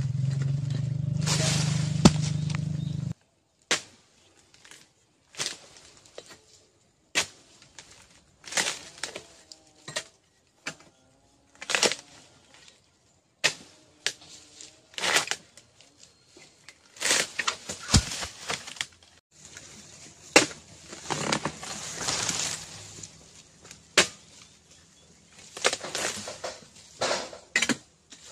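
Pole-mounted harvesting chisel striking and prying at the stalks of oil palm fruit bunches and frond bases: a series of sharp chops and cracks every second or two, with rustling in between. A loud steady low rumble fills the first three seconds and cuts off suddenly.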